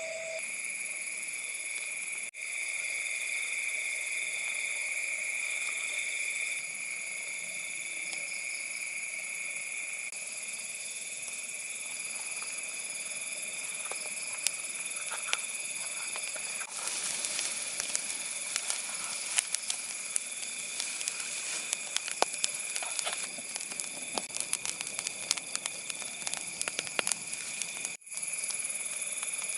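Steady, high-pitched chirring of night insects, with a wood fire crackling and popping from about halfway through.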